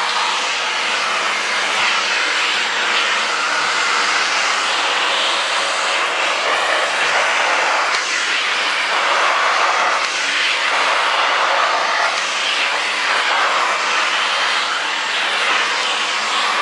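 Vacuum cleaner running steadily, a loud whooshing motor noise that swells and eases a little as it is worked.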